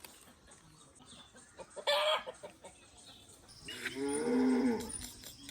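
Farm animals calling: a short, sharp call about two seconds in, then a longer, lower call that drops in pitch at its end, around four seconds in.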